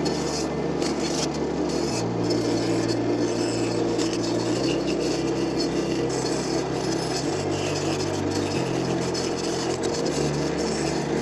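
A tool working the spinning wood of a beech tray blank on a wood lathe: a steady rasping.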